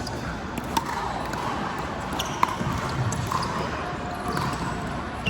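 Pickleball paddles striking the hard plastic ball in a singles rally: sharp, irregularly spaced pops, the loudest about two and a half seconds in, mixed with the ball bouncing on the hard indoor court.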